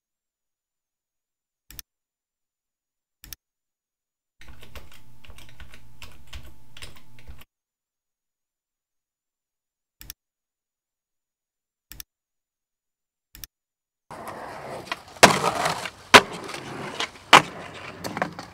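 Single computer mouse clicks, and a few seconds of rapid keyboard typing. Then, about 14 seconds in, a skateboard rolling on concrete with three sharp, loud clacks of the board.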